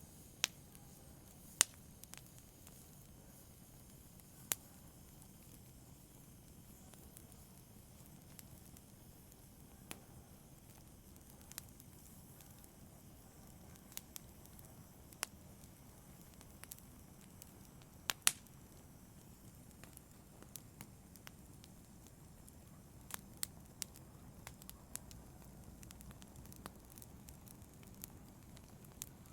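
Fire in a fireplace crackling over a faint steady hiss, with scattered sharp pops. The loudest pops come about a second and a half in and about two-thirds of the way through.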